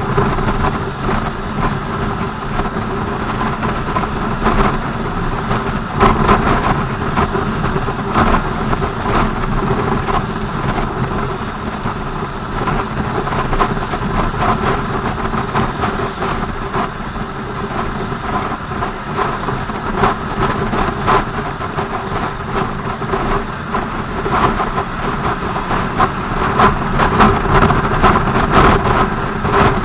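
BMW R 1200 GS motorcycle's flat-twin engine running at a steady speed, with a hiss of noise and scattered short ticks and crackles over it.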